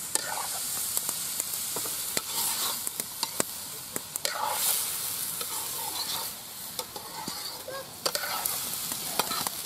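Chopped vegetables sizzling in a metal karahi over a wood fire as a metal spoon stirs them, with a steady hiss and many sharp clinks and scrapes of the spoon against the pan.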